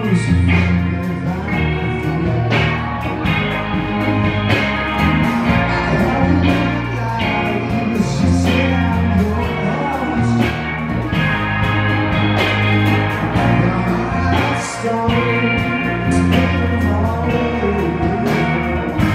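Live rock band playing: electric guitar over a bass line and drums, with cymbal hits.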